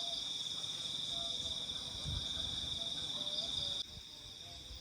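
Insects trilling in a steady, high, finely pulsing drone that drops off abruptly near the end, over a faint low rumble.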